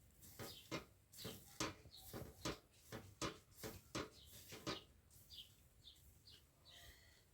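A run of short knocks or slaps, about two or three a second, for the first five seconds. Then a small bird chirps repeatedly in short, evenly spaced calls.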